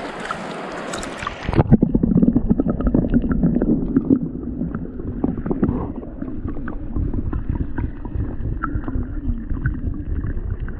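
Flowing stream water. About a second and a half in, the sound turns muffled: a low, gurgling rumble of moving water with many small knocks and clicks.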